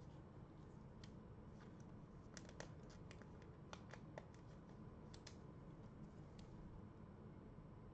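Near silence over a low room hum, with scattered faint clicks and scratchy ticks of trading cards and card packs being handled, bunched together in the middle.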